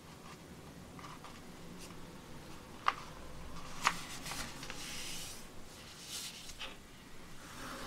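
A sheet of paper being folded by hand on a cutting mat: soft rustling and hands brushing along the paper to crease the fold, with two sharp clicks about three and four seconds in.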